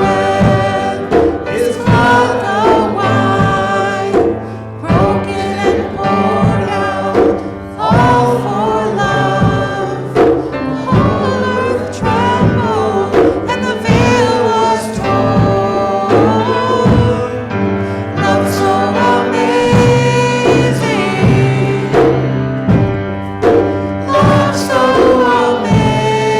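Congregation singing a worship song together, with instrumental accompaniment.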